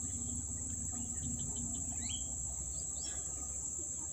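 Steady high-pitched chorus of insects, crickets or similar, with a few short bird chirps over it, one rising about two seconds in.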